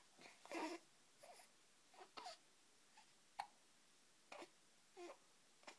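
A baby hiccuping: a string of faint, short hiccups and squeaky catches of breath, about one every half second to a second, the loudest near the start and one sharp click-like hic in the middle.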